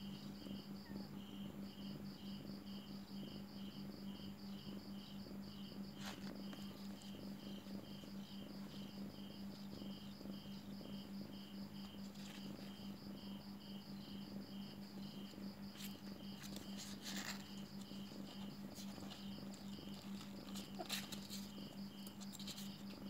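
A cricket chirping steadily, about two short high chirps a second, over a faint steady low hum, with a few soft clicks from the kittens shifting.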